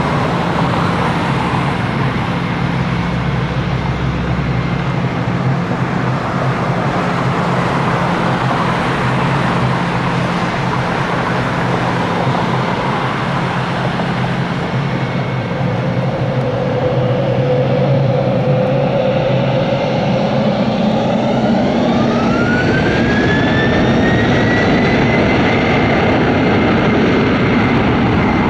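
Boeing 717-200's two rear-mounted Rolls-Royce BR715 turbofans running as the jet taxis, a steady jet hiss. About two-thirds of the way through, a whine rises in pitch and levels off as the engines spool up.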